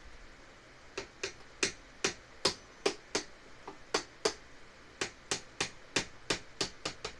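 Claw hammer tapping on the bamboo tray frame in a quick run of light, separate blows, about three a second with a brief pause partway through.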